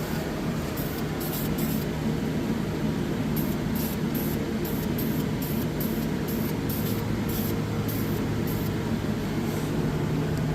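Aerosol spray can hissing in short repeated bursts, a few a second with brief pauses between runs, over the steady hum of an electric fan.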